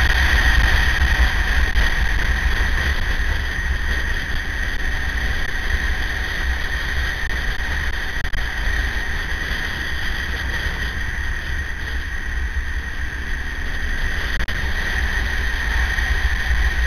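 Wind rush buffeting a microphone mounted on a KTM 950 motorcycle while riding at road speed, over the bike's LC8 V-twin running steadily. A steady high whine sits on top.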